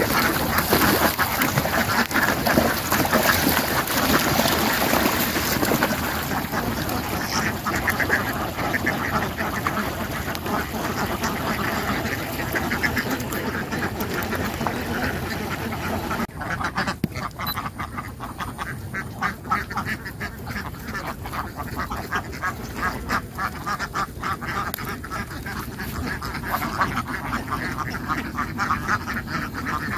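A large flock of Indian Runner ducks quacking continuously, many calls overlapping into a dense chorus. About halfway through a background hiss drops away and the individual quacks stand out more clearly.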